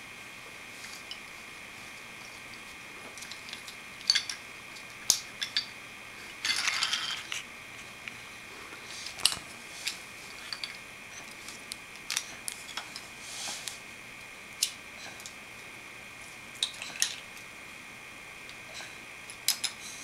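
Scattered clicks and knocks of small wooden and plastic toy train pieces being handled and bumped together, with a brief noisy scrape about six and a half seconds in.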